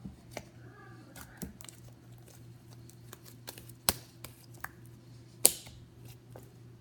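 Slime being squished and poked by hand, making irregular sticky clicks and pops, the loudest about five and a half seconds in, over a low steady hum.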